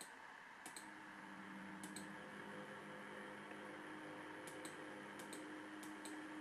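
HO-scale Proto 2000 diesel locomotives running slowly on track, their drives fitted with replacement gears: a faint steady motor hum with light, irregular clicks from the wheels on the rails, often in close pairs.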